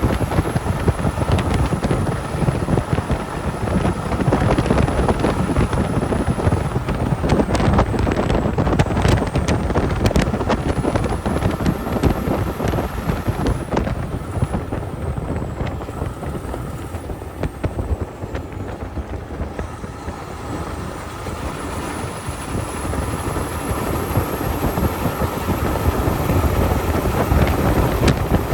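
Logging truck driving, with a steady rumble of engine and road noise. A few sharp rattles come about eight to ten seconds in, and the rumble eases about two-thirds of the way through before building again near the end.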